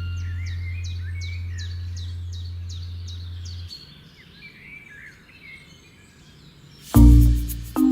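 Small birds chirping, a quick run of high, falling chirps about three a second mixed with lower warbling calls. A low music note fades out about halfway through, and the music comes back loudly near the end.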